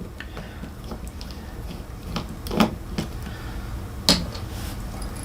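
A few light clicks and knocks from handling the opened laptop and its parts, over a low steady hum.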